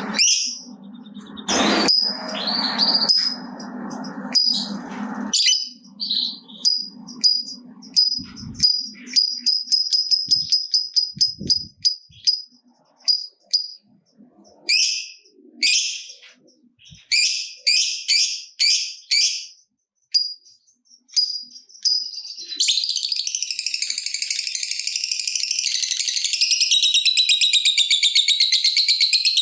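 Lovebird chirping in quick runs of short, high chirps, then breaking into a long, rapid chattering trill (the 'ngekek panjang' long chatter) about three quarters of the way in. A low rasping noise fills the first five seconds.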